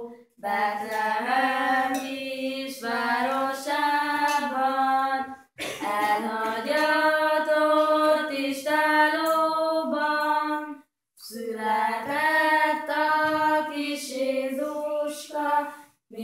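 Children singing a Christmas carol together without accompaniment, in long held phrases with two short breaks for breath partway through.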